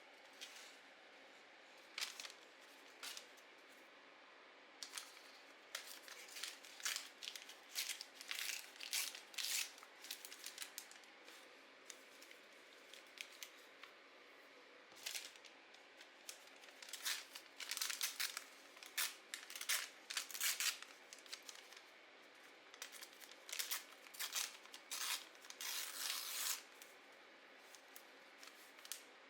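Paper being cut with scissors, in irregular runs of short crisp snips, with a longer run of paper rustling or tearing near the end.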